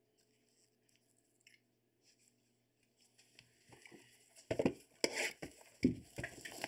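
A faint room hum for the first few seconds, then gloved hands handling cardboard boxes of trading-card packs: soft rustling that turns into a run of short knocks and scrapes from about four and a half seconds in.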